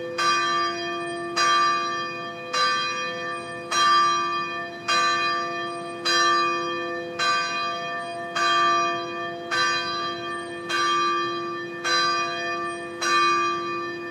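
Bells ringing in a steady, regular peal, struck about once every 1.2 seconds, twelve strikes in all, each strike ringing on into the next over a continuous hum.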